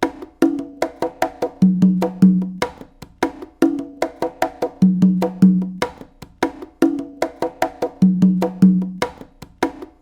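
Homemade African drums playing a fast repeating rhythm of sharp, woody strokes, with a pair of deeper ringing bass tones coming round about every three seconds.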